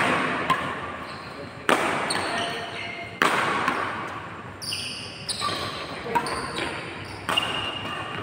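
Badminton rally: rackets strike the shuttlecock with sharp hits every second or so, each ringing on in the large hall.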